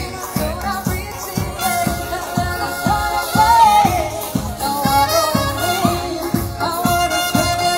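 Live band playing an upbeat, ska-like song: a drum kit keeps a steady beat of about two strokes a second under guitar and a bending lead melody.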